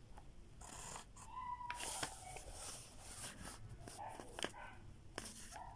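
Pencil strokes scratching on paper and a plastic ruler being shifted, heard as several short scrapes and light knocks. A brief high whine sounds about a second and a half in.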